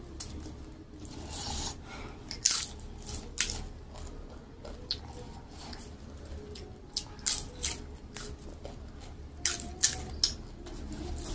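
Close-up eating sounds of crisp papad being bitten and chewed, a string of sharp crunches in small clusters with softer chewing between them.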